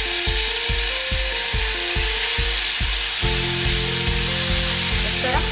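Fish steaks sizzling as they are laid into hot oil in a grill pan, under background music with a steady beat that grows fuller in the bass about three seconds in.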